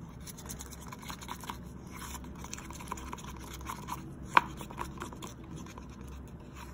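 Metal palette knife scraping and stirring thick acrylic paint in a plastic cup: a run of small scrapes and clicks, with one sharper click about four and a half seconds in.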